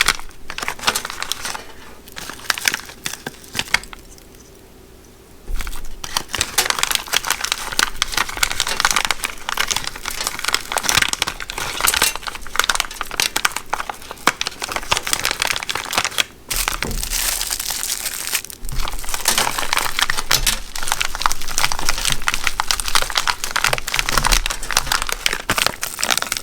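Plastic packaging bag crinkling and rustling as it is handled, with a brief lull a few seconds in.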